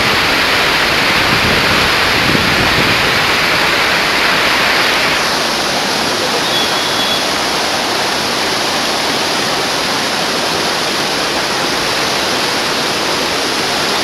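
Steady rush of a rocky mountain river flowing over boulders, an even hiss of water that turns a little duller about five seconds in.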